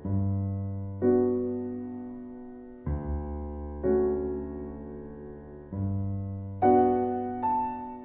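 Background music: slow, gentle piano, with chords struck about once a second or two and each left to fade.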